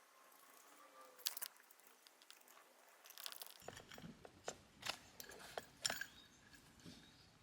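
Faint scattered clicks and taps of small hand work on metal and plastic parts, a couple about a second in and a quicker run of them in the second half.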